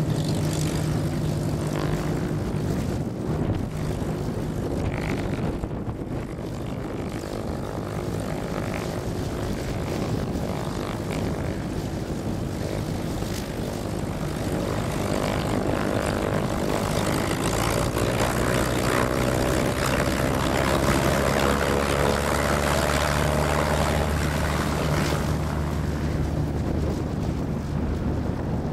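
Cessna 172 piston engine and propeller running close by at low power, then opened up to takeoff power a little past halfway, the hum growing louder and then easing off near the end as the plane rolls away for takeoff.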